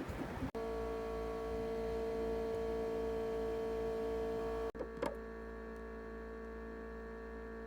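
Steady electrical hum of an egg incubator running, several fixed tones over a low mains hum, starting about half a second in. A short faint chirp sounds about five seconds in.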